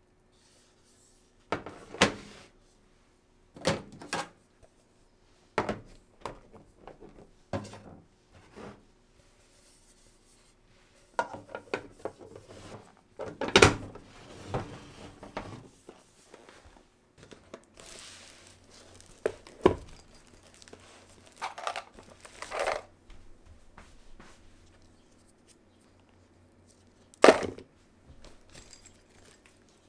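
Household handling sounds: a string of separate knocks and clatters every second or two, with soft rustling between them, the loudest a few sharp knocks near the middle and toward the end.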